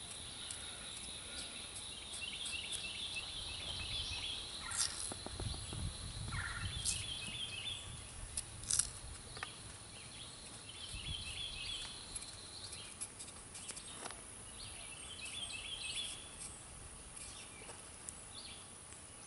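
A knife peeling and slicing a raw potato, heard as a few short scrapes and clicks. Behind it, a bird sings phrases of quick repeated high notes every few seconds over a faint steady insect tone.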